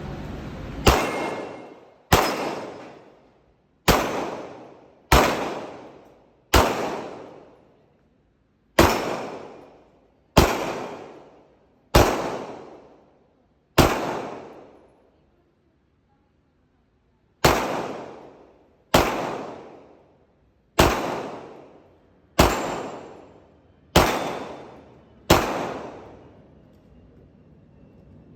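CZ TS 2 Orange pistol firing fifteen single shots at a slow, deliberate pace, each shot ringing out briefly before the next. After the ninth shot there is a pause of about three and a half seconds before the remaining six.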